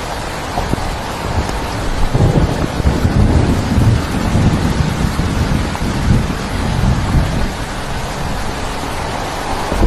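Heavy rain falling steadily, with a low rolling rumble of thunder from about two seconds in until about seven seconds in.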